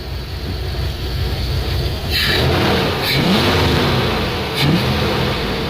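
A 2002 Dodge Ram 1500's 5.9-litre Magnum V8, fitted with a new Airaid cold air intake, idling and then revved in short blips, about two seconds in and twice more, each rev rising in pitch.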